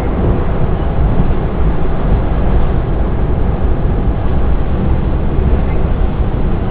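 S-Bahn train running at speed, heard from inside the carriage: a steady low rumble of wheels on rails.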